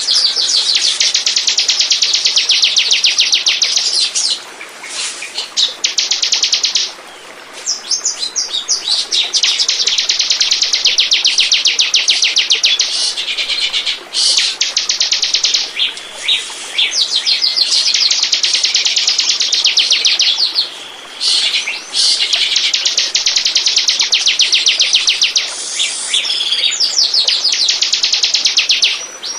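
Ciblek (prinia) singing: long runs of very rapid, high-pitched repeated notes, broken by short pauses every few seconds.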